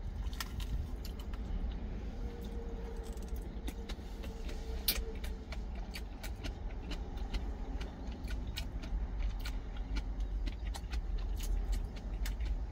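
Close-up eating sounds: chewing, with many small clicks and taps of a wooden spoon against a stainless-steel food container, over a low steady rumble.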